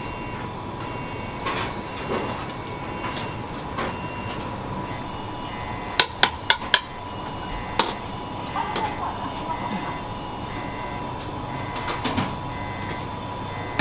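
Kitchen clatter of utensils or cookware being knocked and set down: a quick run of four sharp knocks about midway, then single knocks later, over a steady hum.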